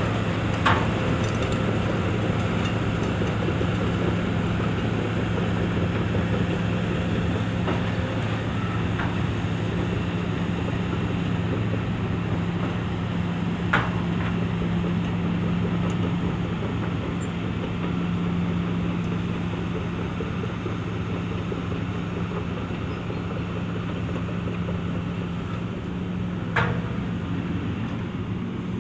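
Hitachi EX355 demolition excavator's diesel engine running steadily, with three sharp knocks: one about a second in, one midway and one near the end.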